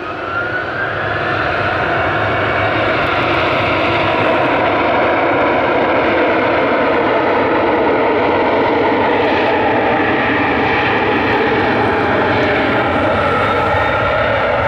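Boeing 737-900ER's two CFM56-7B turbofan engines spooling up to takeoff thrust, a rising whine over the first second or two, then running steadily loud as the airliner accelerates down the runway on its takeoff roll.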